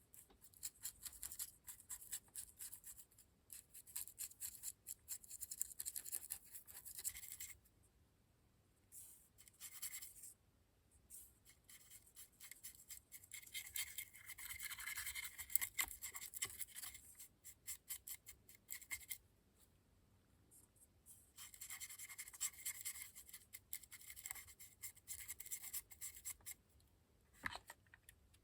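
Small brush scrubbing weathering powder pigment onto a plastic model locomotive's bogies: faint, quick scratching strokes in bouts of several seconds with short pauses between.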